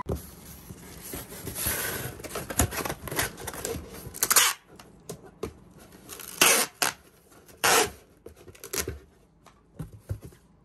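Clear packing tape being pulled off a handheld tape dispenser and pressed onto a cardboard box, with several short rips of tape, the loudest a little past the middle, amid cardboard rustling and small knocks.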